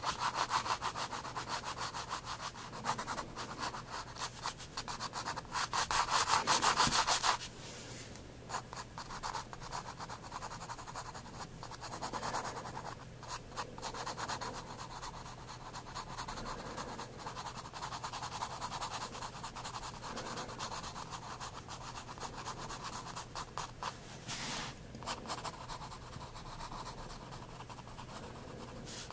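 Soft 9B graphite pencil scratching on sketchbook paper in quick, repeated short strokes, loudest and densest for the first seven seconds or so, then lighter.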